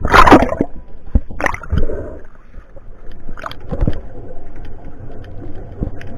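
A loud splash as a spearfisherman ducks under the surface, then muffled underwater sloshing with a few knocks, heard from the submerged camera.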